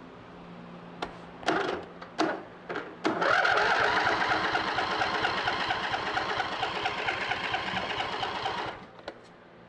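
Electric starter cranking a riding mower's Briggs & Stratton twin-cylinder engine: a click, two brief spins, then about six seconds of steady rhythmic cranking that stops without the engine starting.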